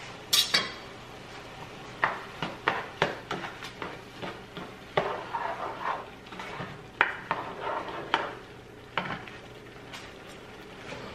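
A spoon clinking and scraping against a cooking pot as rice is stirred, with a few sharp clanks about half a second in and a run of quick taps and longer scrapes after.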